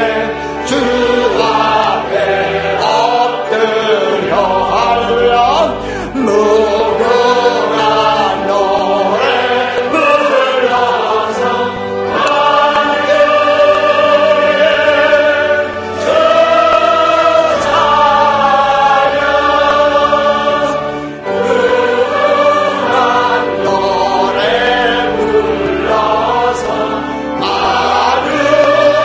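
Church congregation and choir singing a hymn of praise together, with sustained chords and short breaths between phrases.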